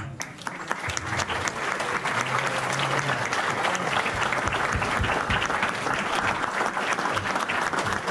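Audience applauding: many people clapping, building up over the first second and then holding steady.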